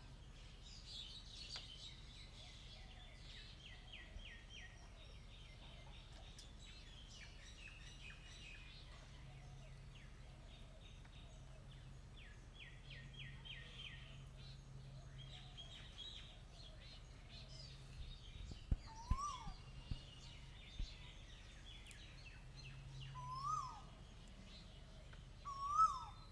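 A koel calls three times in the second half, each call a loud whistled note that rises and then drops, the last the loudest. Behind it, smaller birds keep up a faint, rapid chirping throughout, and a few soft low thumps come just before and after the first koel call.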